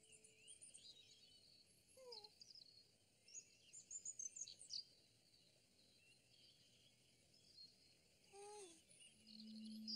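Faint birdsong, scattered high chirps and short trills, with two brief falling pitched calls about two seconds and eight and a half seconds in. A steady humming musical tone comes in near the end.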